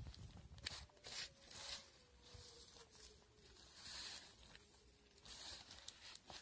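Faint, irregular rustles and crunches of a hand mixing grated coconut and jackfruit on a banana leaf.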